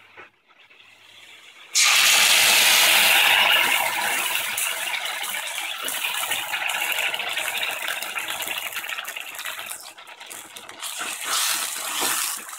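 Wet tomato and chilli paste poured into hot oil with fried garlic in a steel pan. It starts sizzling suddenly and loudly about two seconds in, then slowly dies down, with crackles and spatula scrapes as it is stirred.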